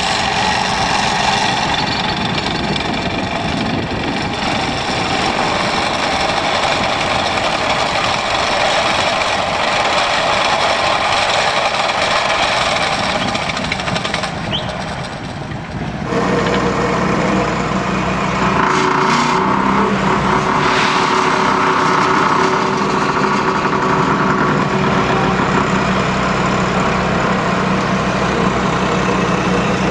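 HUDDIG tool carrier's diesel engine running under load as it pulls a cable plough through the verge, a steady noisy rumble. About halfway through it cuts to a steadier, lower engine hum from a tractor working a boom-mounted machine on the verge.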